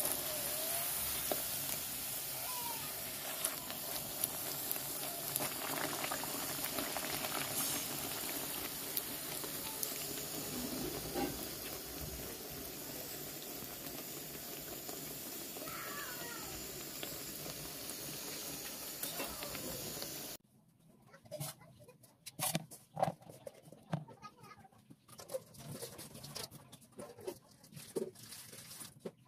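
Flatbread frying in hot oil in a steel karahi, a steady sizzle. It cuts off about two-thirds of the way through, leaving quiet with scattered light knocks and clicks of kitchen things being handled.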